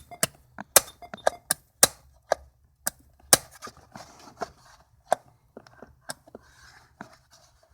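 Panel toggle switches clicking as they are flipped on and off, about fifteen sharp, uneven clicks. The switches do nothing because the panel has no power.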